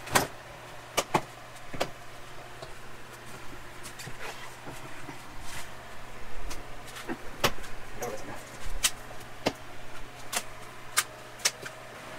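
Sharp plastic clicks, knocks and snaps at irregular intervals as a Dodge Charger Hellcat's front bumper cover is pressed and worked into place by hand, its tabs and clips seating. A steady low hum runs underneath.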